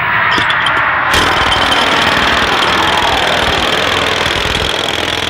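Loud noise of a pneumatic jackhammer pounding rapidly, joined about a second in by a jet engine's harsh rush and steady high whine.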